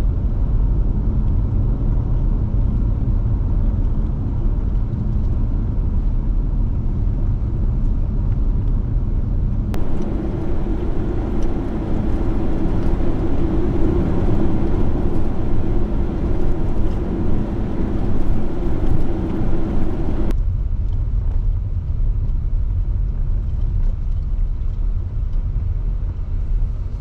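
Car driving along a highway: steady low road and engine rumble. From about ten seconds in to about twenty the sound changes abruptly, brighter and with a steady hum added, then switches back just as suddenly.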